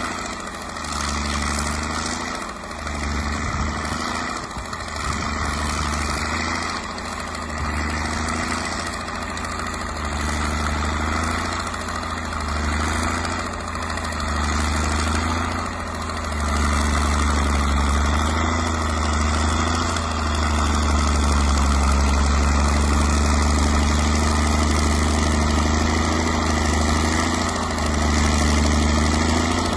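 Caterpillar D6 crawler dozer's diesel engine pulling a train of loaded freight sleighs through snow, its note wavering slightly under the load. It gets louder from about halfway through.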